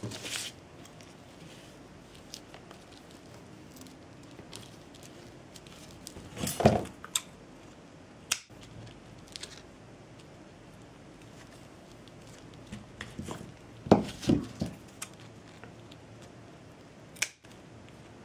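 Handling sounds of jute craft work at a table: scattered soft rustles and small clicks, with a few louder short knocks and snips of tools such as scissors.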